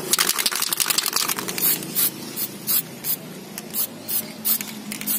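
Aerosol can of Pilox spray paint spraying in many short hissing bursts, close together at first and then about two or three a second.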